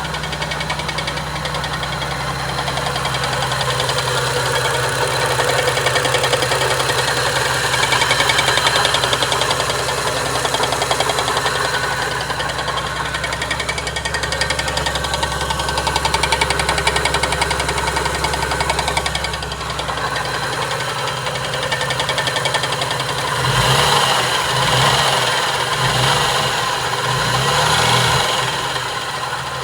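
Toyota 2JZ-GTE twin-turbo inline-six running with a fast, loud knocking noise, revved up and down several times near the end. The owner could not locate the noise with a stethoscope and suspects rod knock.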